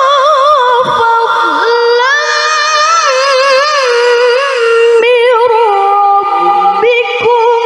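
A woman's high-pitched, melodious Quran recitation in the tilawah style: long held vowels ornamented with rapid wavering turns. The pitch settles lower in the second half, with short breaks about five and seven seconds in.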